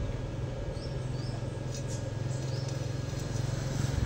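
A steady low rumble of background noise, with a few short, high bird chirps about a second in and again halfway through.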